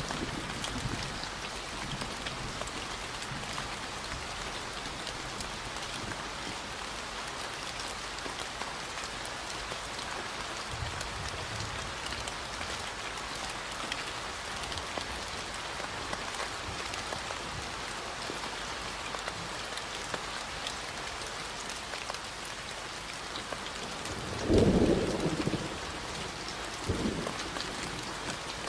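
Steady rain falling, with low rolls of thunder: a faint one partway through and a louder one near the end, followed closely by a shorter rumble.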